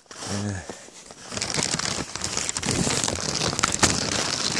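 Clear plastic sheeting of a homemade super shelter crinkling and rustling as it is pushed aside and brushed past, starting about a second in and staying loud and crackly.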